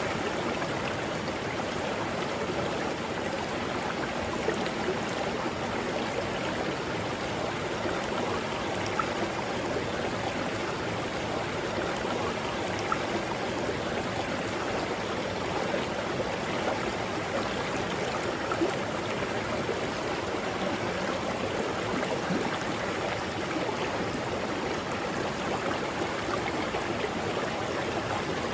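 Mountain river flowing steadily: a continuous rush and gurgle of water over rocks.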